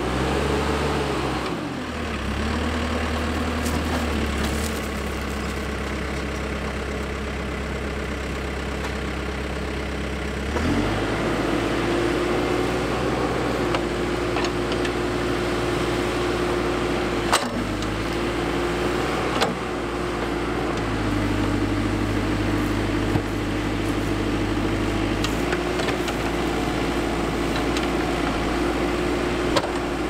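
Backhoe loader's diesel engine running as the rear bucket digs, its pitch dropping about two seconds in and rising again to a higher steady speed about ten seconds in. There are a few sharp knocks in the second half.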